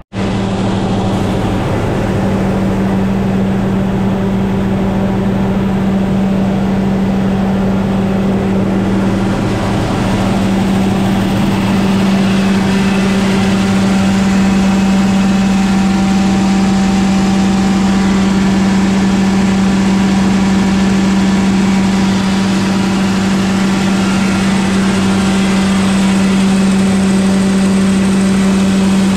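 An engine running steadily with a constant low drone, getting a little louder about twelve seconds in.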